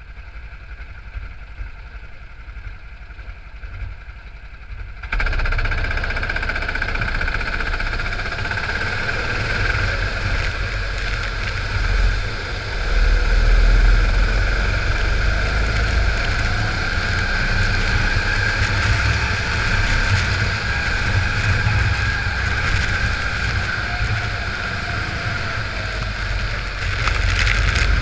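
Go-kart engines running in a pack, heard onboard: the engine is quieter for the first five seconds, then jumps to a steady loud run as the karts accelerate away at the race start. The engine note holds steady over the noise.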